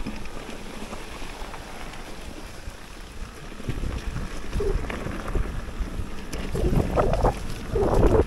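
Wind buffeting the microphone over the rumble of a mountain bike rolling down a rough trail, getting louder and more uneven in the last couple of seconds.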